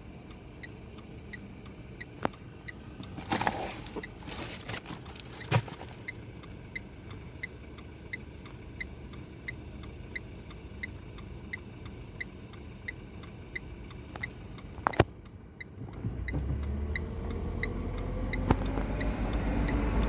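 A stopped motor vehicle's indicator relay ticking steadily, about one and a half clicks a second, with a few knocks. About four seconds before the end the engine picks up and revs rising in pitch as the vehicle pulls away.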